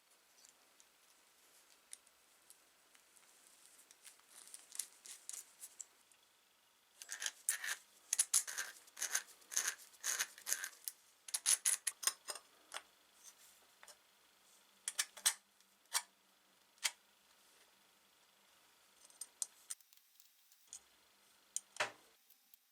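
Small metal parts being handled, a run of quick clicks and light clinks, thickest in the middle of the stretch and then sparser, with a few single clicks near the end.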